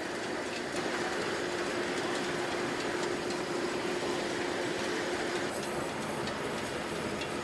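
Coke-fired cupola furnace melting iron, running steadily: a continuous rushing noise with a constant hum underneath.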